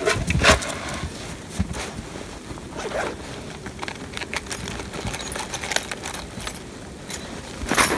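Handling sounds: a couple of knocks in the first half-second as a rough-lumber wooden box is set down in the snow, then the rustle of a winter coat with small clicks and jingles as gear is handled, and a louder rustle near the end.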